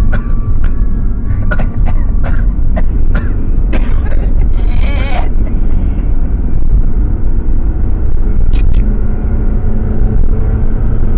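A person coughing in a rapid series of short coughs, then one longer strained, wavering cough, over the steady low rumble of a moving car.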